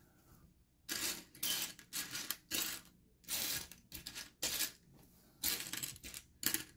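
Small plastic building bricks clattering as a hand rummages and sifts through a loose pile of them. It comes in irregular bursts starting about a second in.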